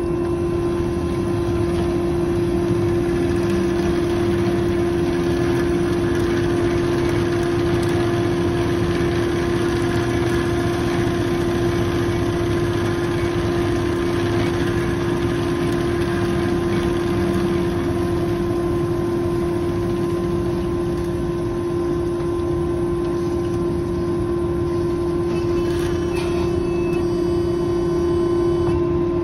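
Amada HA250W automatic horizontal band saw running: a steady machine hum with one strong, even tone over a low rumble.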